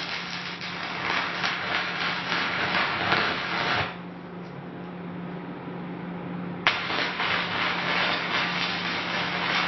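Stick (MMA) electrode arc welding on thin washing-machine sheet metal: a dense, loud crackle that stops about four seconds in and, after a pause with a steady low hum, restarts with a sharp click as the arc is struck again near seven seconds.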